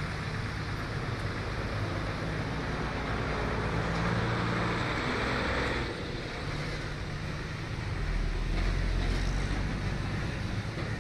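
Steady motor engine rumble over a broad rush of outdoor noise. It swells about four to six seconds in, dips, then deepens into a low rumble near eight seconds.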